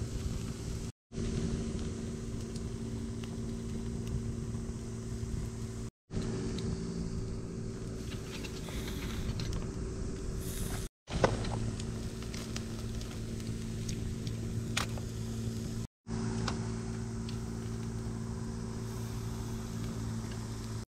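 A steady low mechanical hum, like an idling engine, with a few sharp crackles from a small wood fire grilling a slab of meat. The sound drops out completely for a moment about every five seconds.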